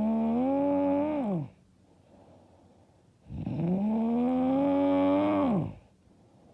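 A woman snoring loudly. There are two long snores with a clear droning tone that rises in pitch and then drops away as each one ends. The first fades out about a second and a half in; the second starts past the middle and lasts about two and a half seconds.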